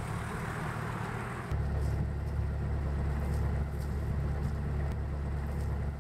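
A sailboat's inboard engine running steadily under way, heard as a low, even drone that comes in about a second and a half in, after a softer hiss.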